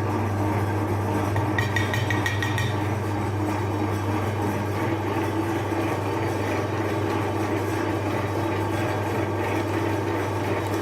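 Electric meat grinder motor running with a steady low hum while grinding ice cream bars, with a brief rattle of clicks near the start.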